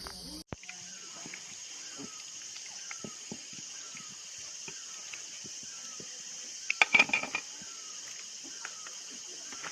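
Outdoor rural ambience: a steady high insect drone with small birds chirping in short, repeated falling notes, and a brief louder burst of sharp calls or knocks about seven seconds in.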